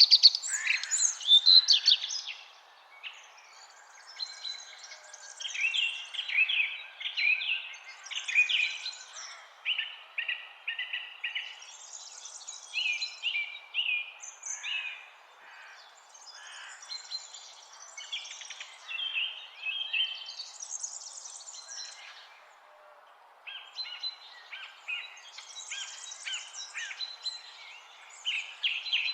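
Several birds singing and chirping at once: repeated rapid chirp series and short trills, loudest at the start, with a steady background hiss of outdoor noise.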